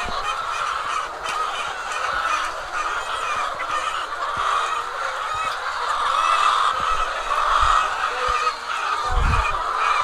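A shed full of caged white laying hens clucking and calling all at once, a steady chorus of overlapping calls. A low bump comes near the end.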